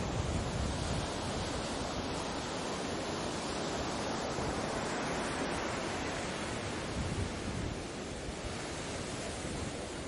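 Ocean waves washing onto a beach: a steady rushing wash that swells a little in the middle and eases slightly near the end.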